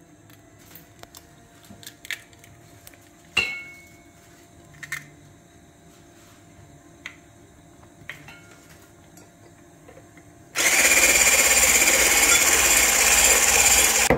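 A few light knocks and clicks, then an electric hand mixer switched on suddenly near the end and running steadily, its beaters whisking an egg into creamed butter and sugar.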